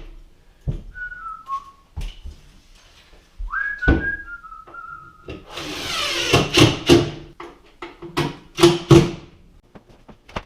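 A person whistling a few short notes that step down in pitch, twice, amid sharp knocks and a stretch of scraping, bumping noise in the second half.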